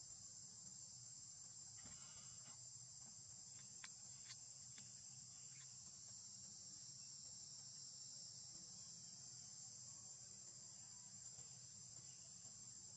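Faint, steady high-pitched insect chorus, an even hiss-like drone that does not change, with a few faint small ticks a few seconds in.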